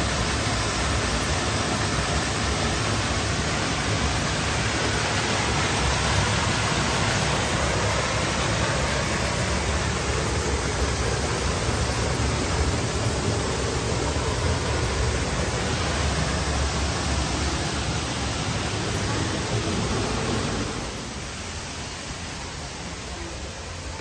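Düden waterfall pouring down, a loud, steady rushing of falling water heard from right behind the curtain of water. About 20 seconds in it drops noticeably quieter.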